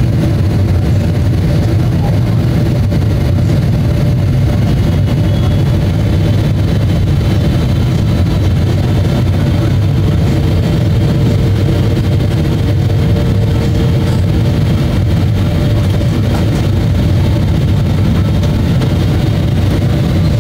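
Boeing 777-300ER cabin noise on approach, heard from a window seat: a steady low rush of engine and airflow noise from the GE90 engines, with faint steady whining tones above it.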